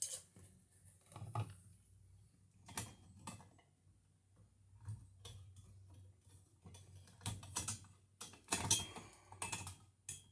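Scattered light clicks and knocks from hand tools working on a wall outlet and its box, a few single ones early and a quicker cluster near the end.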